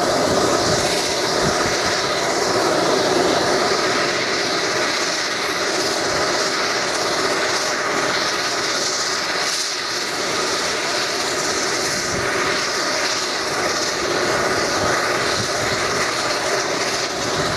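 Bombardier Dash 8 Q300's Pratt & Whitney PW123 turboprop running steadily at idle: a continuous whining hiss that holds level throughout.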